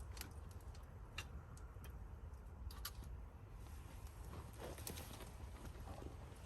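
Wood fire in a fire pit crackling, with scattered sharp pops over a low steady rumble; the pops come more often in the second half.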